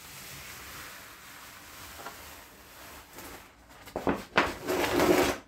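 Wallpaper being peeled off a wall: a dry papery tearing and rustling, with louder rips near the end.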